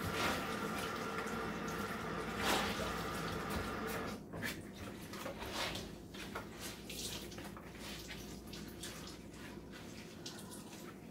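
Tap water running into a sink as linen pants are wetted before dyeing. The flow shuts off about four seconds in, followed by drips and small splashes of the wet fabric being handled.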